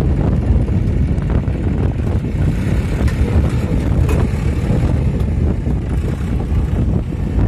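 John Deere 5036 D tractor's diesel engine running hard under load as it pulls a heavily loaded trolley through loose sand, a steady low rumble.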